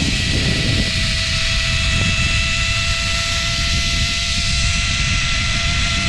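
Zipline trolley pulleys running fast along the steel cable with a steady, unchanging whine, under a heavy rush of wind on the microphone from the speed of the ride.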